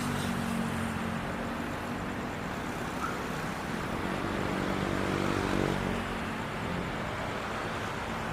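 Diesel locomotive of a container freight train running under throttle, a steady rumble whose engine note shifts in pitch.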